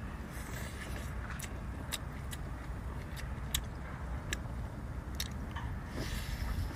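Close-up eating of boiled lobster meat: mouth clicks and lip smacks scattered through the chewing, over a steady low rumble.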